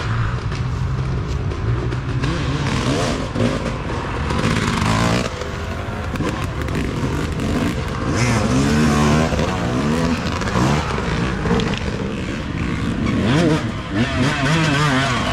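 Dirt bike engines revving, their pitch rising and falling as the riders work the throttle, getting louder from about halfway in as two bikes approach.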